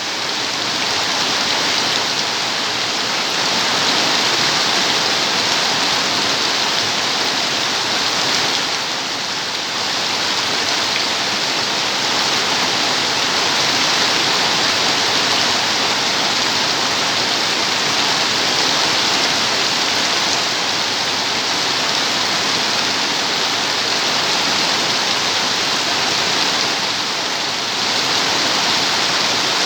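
Steady heavy rain falling in a dense, even patter, dipping slightly in loudness twice.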